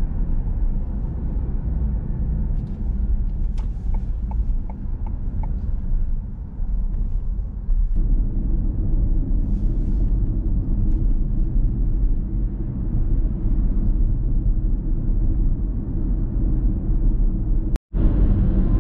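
Steady low road and tyre rumble inside a moving Ford Mustang Mach-E, an electric car, so there is no engine sound. The noise drops out for a moment near the end and comes back with more hiss.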